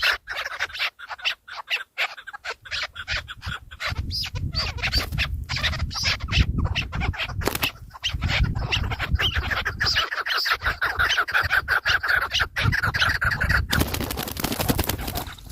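Francolin calling in a dense run of shrill notes, with a low rumble underneath from about four seconds in.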